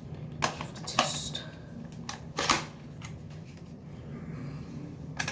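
Plastic gel blaster pistol clicking and clacking as it is worked for a test: a few short, sharp clicks in the first two and a half seconds and one more near the end.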